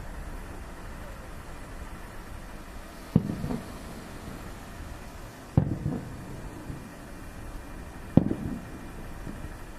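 Three fireworks shells bursting overhead, booms about two and a half seconds apart, each followed by a short rumbling echo.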